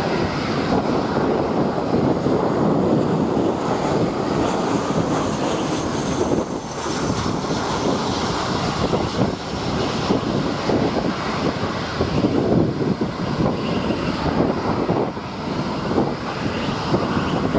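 Boeing 787 jet engines running at taxi power, a steady rumble with a faint high whine over it.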